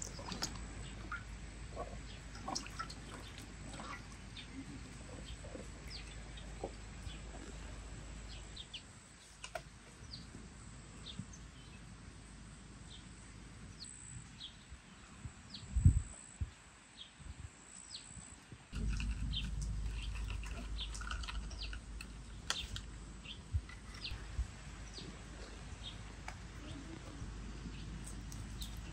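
Birds chirping in short, scattered calls throughout. At the start, water splashes as vegetables are rubbed clean by hand in a metal basin of water, and there is a single dull thump about halfway through.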